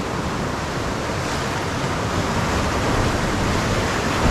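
Ocean surf washing and breaking over the rocks below the shoreline: a steady rush of churning water, swelling a little partway through.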